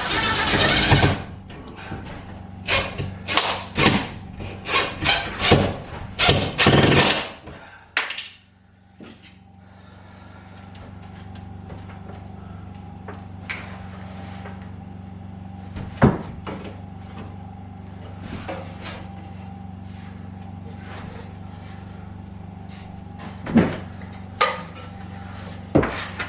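A power driver sinking screws into wood to mount a wall plate: a dense run of sharp knocks over the first several seconds. After that a steady low hum, broken by a few single knocks and clicks.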